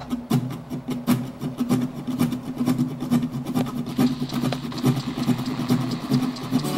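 Locomotive engine running steadily, with a rapid irregular clatter of clicks over it.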